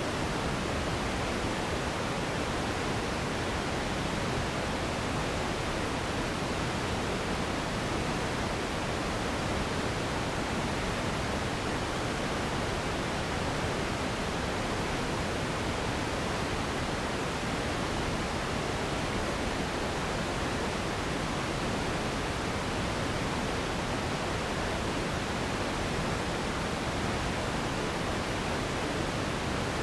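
Steady synthetic pink noise played as a sleep and relaxation sound: an even, unchanging hiss with more weight in the low end than in the highs.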